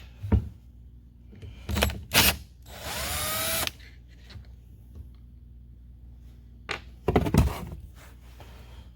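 Power drill spinning a 4 mm Allen bit in several short bursts, backing out the hex screws on the back of an air impact wrench. The longest run, about a second, rises in pitch as the drill spins up.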